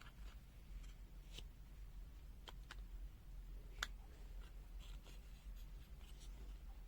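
Faint scattered clicks and light rubbing from a small opened-up multimeter and its circuit board being handled, with one sharper click a little under four seconds in, over a low steady hum.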